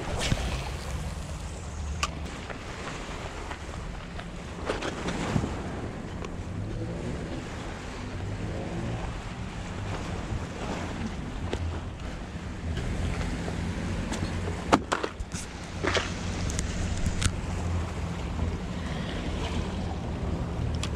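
Wind rumbling on the microphone over sea washing against shoreline rocks, with a few sharp knocks and clicks scattered through, the loudest about fifteen seconds in.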